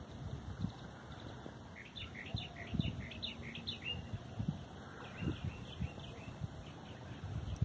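Small birds chirping in quick runs of short, sliding notes, busiest between about two and six seconds in, over scattered dull low thumps.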